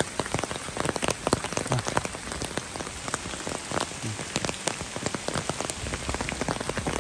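Steady rain falling, an even hiss with many sharp taps of individual drops landing.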